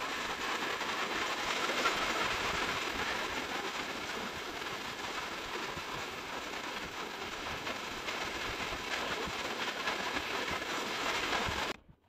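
Steady rushing wash of small waves breaking on a sand beach, which cuts off abruptly near the end.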